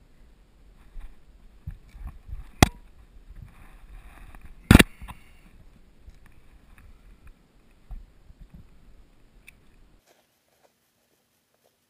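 Two sharp knocks about two seconds apart, over low scraping and handling noise; the sound cuts out near the end.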